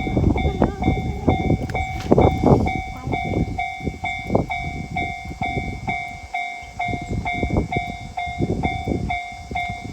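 Railway level crossing warning bell ringing steadily at about two chimes a second, over irregular low rumbling.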